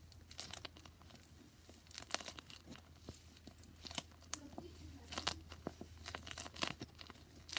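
Plastic ice pack filled with crushed beads turned to gel being squeezed in the hands, its plastic skin crinkling with irregular crackles and clicks.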